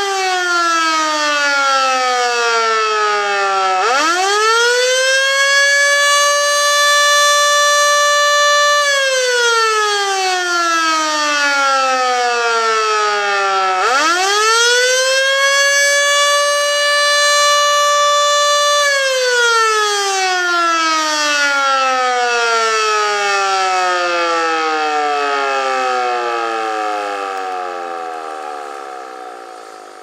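Federal Signal Model 2 electromechanical fire/alert siren sounding an attack signal, a rising and falling wail. It is winding down as it begins, spins up sharply to a steady high wail about four seconds in, holds, and winds down again. It spins up a second time near the middle, holds, then winds down slowly and fades out over the last ten seconds.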